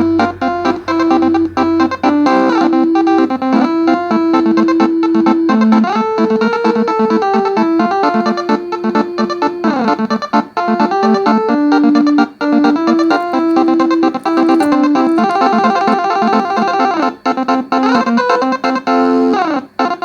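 Twelve-note Basuri telolet bus horn set, a bank of air horns each tuned to one note, playing a continuous melody of held and quickly stepping notes, with a few notes sliding in pitch.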